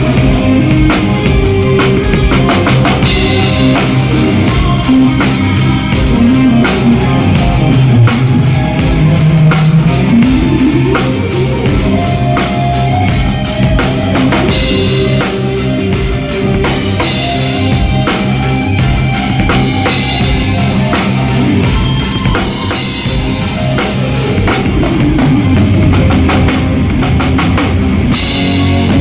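Acoustic drum kit played to a rock song: kick drum, snare and cymbals in a steady beat over the song's pitched backing, with crash cymbals washing in every few seconds.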